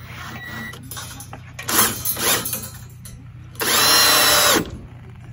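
Ridgid cordless drill driving a screw into a wooden post: short bursts, then a run of about a second with a steady whine that drops in pitch as it stops.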